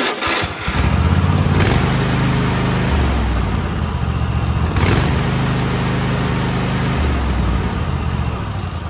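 Kohler KT735 24 hp V-twin lawn tractor engine running evenly, the way it should sound after new ignition coils, firing on both cylinders rather than one. Its pitch shifts a few times, and the sound fades near the end.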